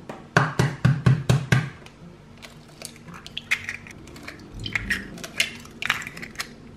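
Eggs being cracked into a glass bowl: a quick run of about six sharp knocks in the first second and a half, then scattered crackling of shells as the eggs are broken open and drop in.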